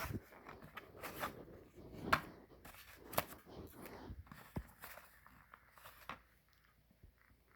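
Coin packaging being handled and opened by hand: irregular clicks, taps and scraping rustles of boxes and cases, stopping about six seconds in.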